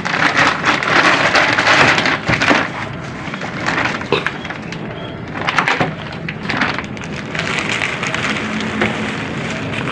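Crinkling and crackling of a woven plastic rice sack being held open and handled while dry remains and debris are scooped from the coffin into it by hand. It is loudest in the first two and a half seconds, with further bursts about four and six seconds in.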